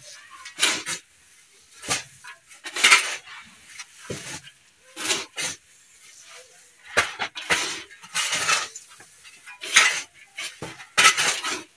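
A metal shovel blade scrapes and scoops through gravelly soil mix, tossing and turning it in about a dozen strokes, roughly one a second, while the potting substrate is being mixed.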